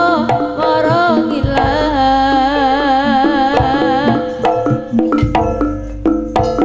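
Live Javanese jaranan band music: hand-drum strokes under held notes and a wavering melody line with heavy vibrato, an instrumental passage between sung verses.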